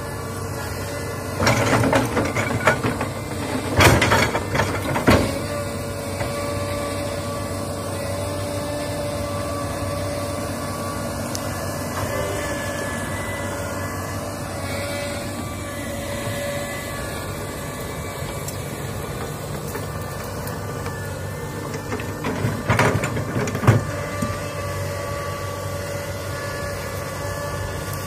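Komatsu crawler excavator's diesel engine running steadily under load with a steady whine. Clusters of knocks and scraping come a couple of seconds in and again near the end as the bucket tears through brush and soil.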